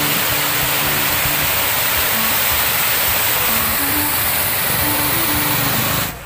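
Loud steady rush of water gushing from a creek culvert, with a simple background-music melody of held notes beneath it; the rush drops away abruptly near the end.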